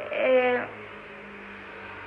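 A man's short, drawn-out vocal sound lasting about half a second, then a steady low electrical hum.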